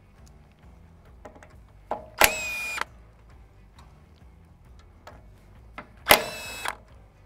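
Cordless impact wrench run in two short bursts of about half a second each, about two seconds in and again near six seconds, backing out the bolts of an excavator's hydraulic filter cover. Light clicks of the socket and extension are heard between the bursts.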